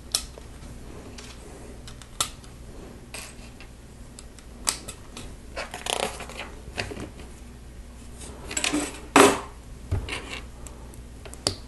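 Plastic Lego bricks clicking and clattering as they are pressed onto a model and picked out of loose pieces on a table. The clicks come irregularly, with the loudest clatter a little past nine seconds in.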